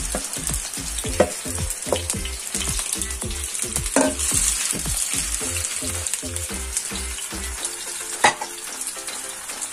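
Minced chicken sizzling in hot oil in a non-stick frying pan as a wooden spatula stirs and breaks it up, scraping and knocking against the pan a few times, with the loudest knock about eight seconds in.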